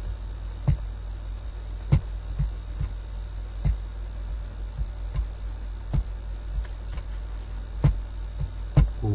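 Steady low electrical hum with irregular short clicks and light thumps, about one or two a second, from a computer mouse being clicked and handled on the desk.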